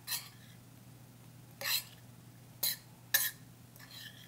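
A utensil scraping and clinking against a stainless steel skillet as apple slices are stirred: about five short, separate strokes.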